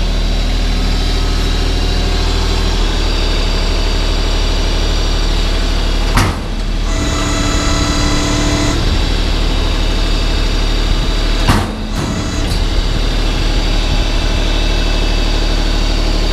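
LS tractor's diesel engine idling steadily, with a clunk about six seconds in, a higher-pitched whine for about two seconds after it, and another clunk near the twelve-second mark.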